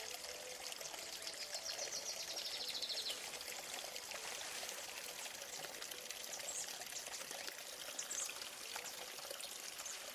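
Running water of a small stream, a steady rush. A high, rapid trill sounds for about two seconds near the start, and two short high chirps come later.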